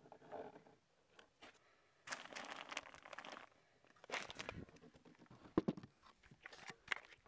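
Faint crunching and rustling in irregular bursts, with a few sharp clicks.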